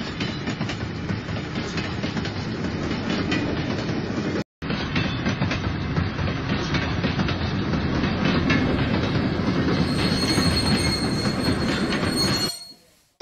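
Electric model train running on plastic track: a steady rolling rumble of wheels and motor with rapid clicking over the track joints. The sound cuts out for a moment about four and a half seconds in, a thin high whine joins about ten seconds in, and it fades out near the end.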